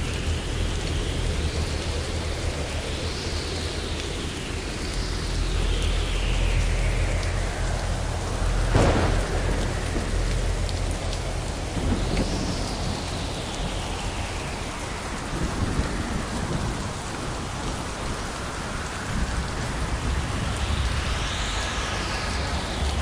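Thunderstorm: steady rain hissing, with thunder rumbling low throughout and one sharp crack of thunder about nine seconds in.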